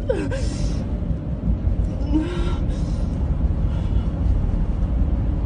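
Steady low rumble of a car on the move, heard from inside the cabin, with two short hissing rushes, about half a second in and about two seconds in.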